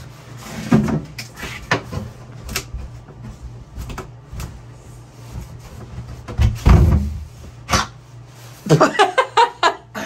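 A stuck wooden access panel in a wood-panelled wall being pried and tugged at its edges: scattered knocks and clicks of wood, with a heavier thump about seven seconds in.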